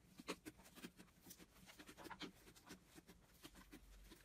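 Faint, irregular crackling and small sticky pops of white fluffy slime as a hand presses into it and pulls it apart.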